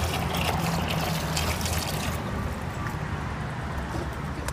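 Water and ice being poured from a plastic bag into a bucket: a trickling pour that tails off about two seconds in, over a low steady hum.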